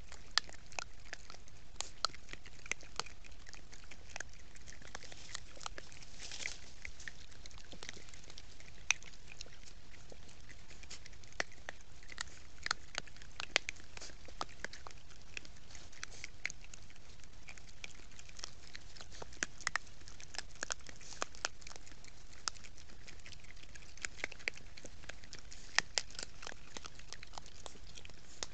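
Coatis eating cracked corn among dry leaves: irregular crunches and clicks, several a second at times, from chewing kernels and rummaging in the pile. A steady hiss runs underneath.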